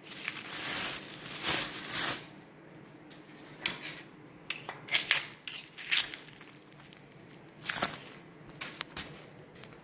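Plastic crinkling and rustling as a plastic bag is pulled off a steel bar, then stretch wrap crackling as it is peeled away, in a run of short irregular bursts.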